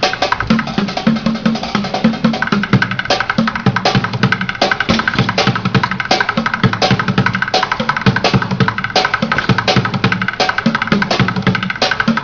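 Bucket drumming: drumsticks beating fast, dense, unbroken rhythms on upturned plastic buckets and a plastic crate.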